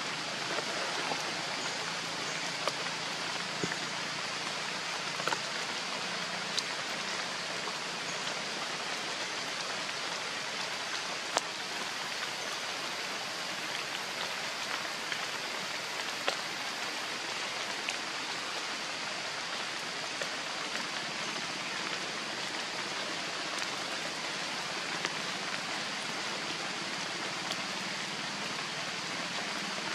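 Steady rain falling, with scattered sharp ticks of single drops.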